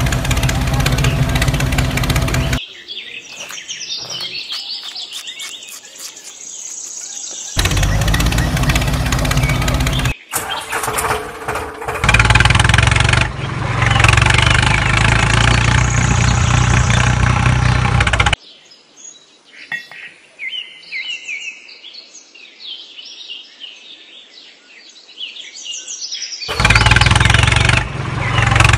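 A tractor engine running at a steady pitch, cutting in and out abruptly several times, with birds chirping in the quieter stretches between.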